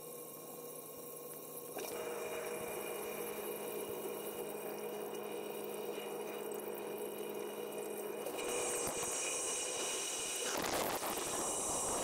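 Samsung DW80R9950US WaterWall dishwasher running, heard from inside the tub: a steady low hum from the wash pump under the hiss of water spraying against the racks and walls. The spray grows louder about two seconds in and again near the end.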